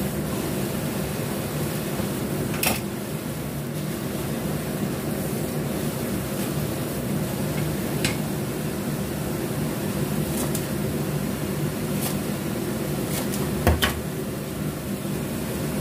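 A steady low mechanical hum, like a fan, with a few sharp pops and crackles from tofu and chilli-garlic paste frying in the pan, two of them close together near the end.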